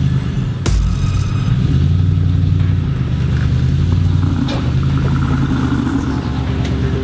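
Hummer H2's V8 engine idling with a steady low rumble, with a couple of sharp knocks from the truck.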